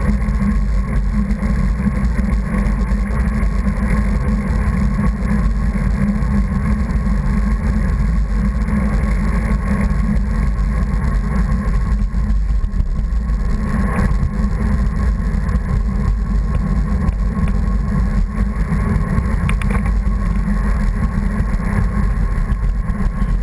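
Steady, heavy low rumble of wind buffeting the microphone of a camera on a moving rider, with road and vehicle noise underneath.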